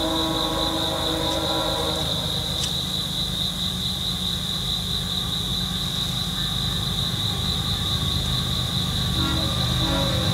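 Diesel locomotive horn of an approaching freight train: a chord that fades out about two seconds in, then short blasts starting again near the end as the train gets louder. Under it a steady low diesel rumble and a constant high insect trill from crickets.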